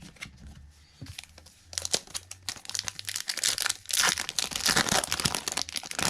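Plastic trading-card pack wrapper crinkling and being torn open, a dense crackle that starts about a second and a half in and is loudest near the end.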